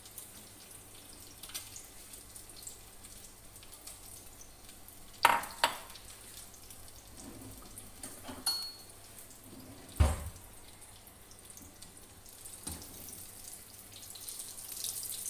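Breadcrumbed chicken patties shallow-frying in hot oil in a pan, a steady sizzle that grows louder near the end as a spatula works them. A few sharp knocks stand out, two about five seconds in and one about ten seconds in.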